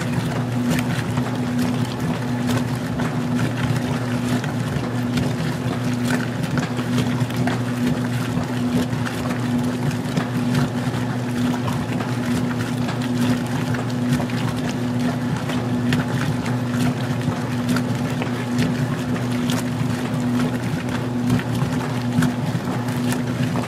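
Magic Chef 20-pound washing machine in its wash agitation on an extra small load at the lowest water level: the motor hums steadily, with water churning and light splashing over it.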